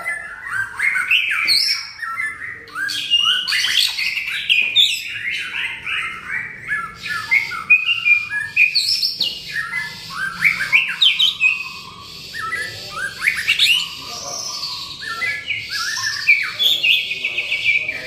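White-rumped shama in full, vigorous song: a continuous stream of varied whistled phrases and fast trilled note runs, with hardly a pause.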